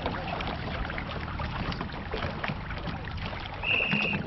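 Small fibreglass river-crossing boat under way, its outboard motor running with a steady low hum over water and wind noise. A brief high steady tone sounds about three and a half seconds in.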